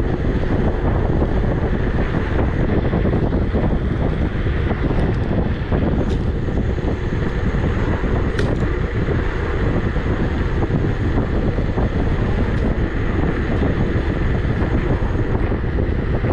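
Steady wind rushing over the camera microphone, with road and tyre rumble, from an Emove Cruiser electric scooter riding along at speed.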